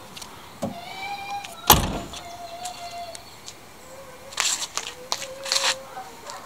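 The steel driver's door of a 1978 Camaro Z28 swung shut with one solid slam a little under two seconds in. Two shorter, softer sounds follow later.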